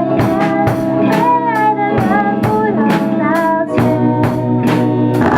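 Music: a sung lead melody that bends and glides over held chords, with a steady beat of about three strikes a second.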